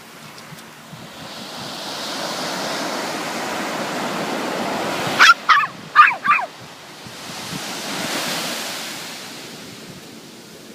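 Waves washing in with two slow swells, and between them four loud, quick cries from an animal, each falling in pitch.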